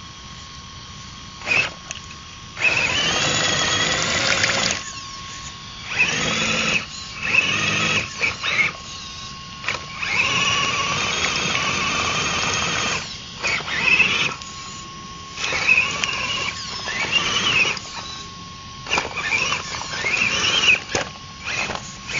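Electric motor of an RC scale crawler truck whining in repeated throttle bursts, its pitch rising and falling as the driver blips the throttle and the tyres spin in deep mud. About eight bursts, the longest lasting two to three seconds, with short pauses between.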